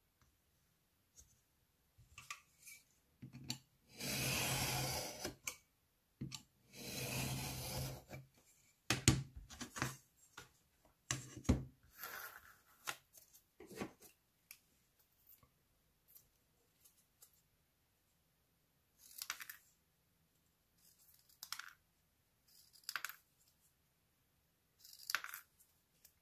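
A craft knife drawn twice along a metal ruler, slicing through grey cardboard in two long strokes, followed by clicks and handling of the pieces. Near the end, scissors snip small cardboard pieces four times, a few seconds apart.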